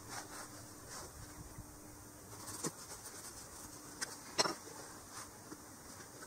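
Faint rustling of an Ezo sika deer hide's stiff hair and a cord being laced and pulled through the hide's edge, with a few light ticks, the sharpest about four seconds in.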